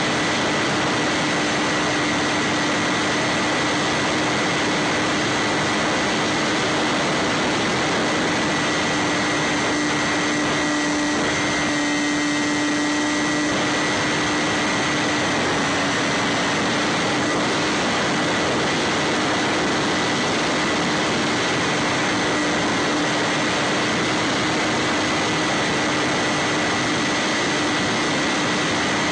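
Electric motor and propeller of a Bixler 3 foam FPV plane running at a steady throttle: a constant low hum and a high whine over heavy wind rush, heard through the onboard camera's microphone. The tone shifts briefly about halfway through.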